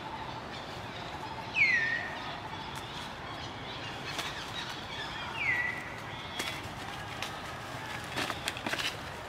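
An animal call: a short, high whistle that drops steeply in pitch and then levels off, heard twice about four seconds apart. In the last few seconds there is a run of scattered knocks and rustles.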